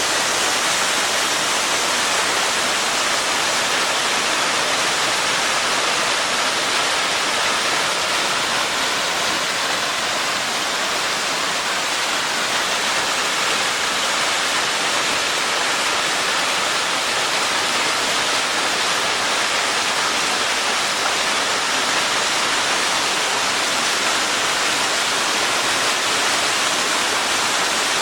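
Waterfall cascading close by: a loud, steady rush of falling water with no let-up.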